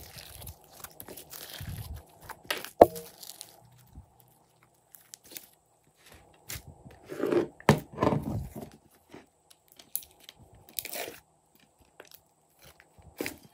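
Glossy slime squished and stretched by hand in a glass bowl: wet squelches and crackling air-bubble pops, with one sharp click about three seconds in and the loudest run of squelches around seven to eight seconds in.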